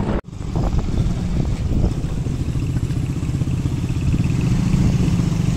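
A motor vehicle's engine running steadily while driving, with road and wind noise, after the sound drops out for a moment at the very start.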